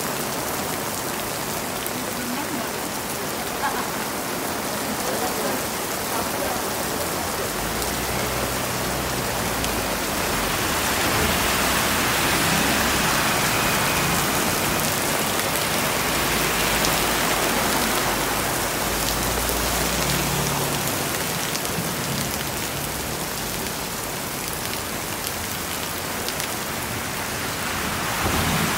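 Heavy rain pelting a road and pavement, a dense steady hiss. Through the middle a passing bus adds a low engine rumble.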